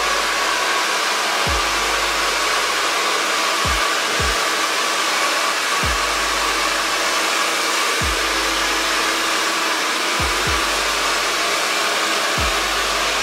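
Hand-held hair dryer blowing hot air steadily, drying a freshly sprayed layer of hair lacquer on an afro.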